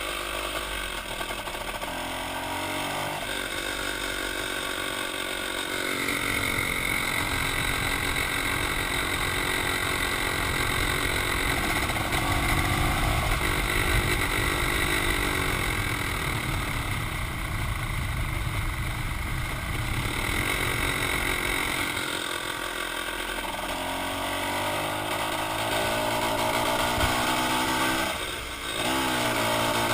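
GasGas Pampera 250 two-stroke single-cylinder engine running, with a rough, noisy stretch and a steady high whine in the middle, then the pitch rising again near the end. The owner describes a strange noise and vibration on the overrun that goes away with the clutch pulled in.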